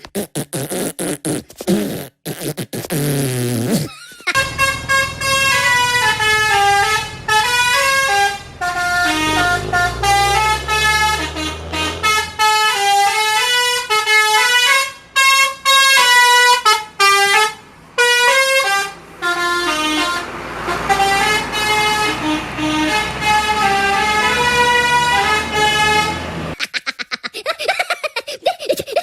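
Bus 'telolet' horn playing a tune of quick stepping notes, starting about four seconds in and cutting off a few seconds before the end, with a low rumble underneath.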